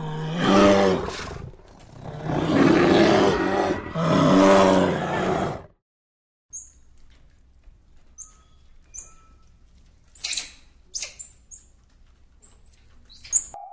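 Polar bears growling in three rough, loud calls. After a short pause, a meerkat gives a string of short, high chirps.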